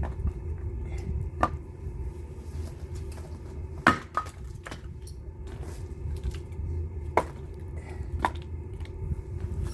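Firewood giving five or so sharp cracks and knocks at uneven intervals, the loudest about four seconds in, over a steady low rumble.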